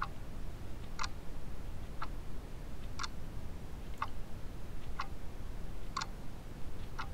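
Clock ticking, about one tick a second, over a low steady hum.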